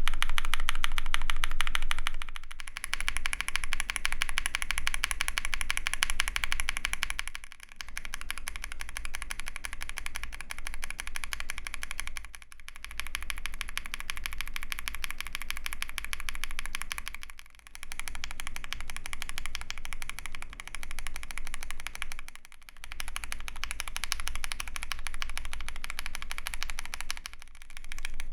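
Fast typing on a mechanical keyboard with lubed linear switches: a dense clatter of keystrokes. It comes in stretches of about five seconds, each broken off by a brief gap.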